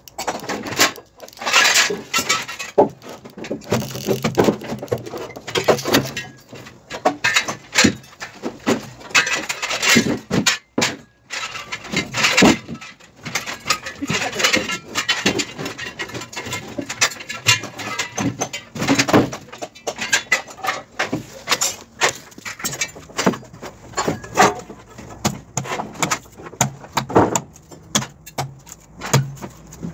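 Irregular hammer blows and metallic clanks and rattles as the clamps and clips of concrete wall formwork are knocked loose to strip the panels.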